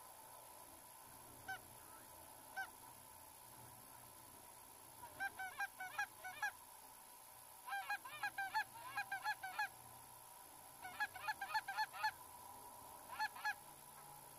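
Canada goose honks and clucks: two lone honks, then four quick runs of rapid clucking and honking.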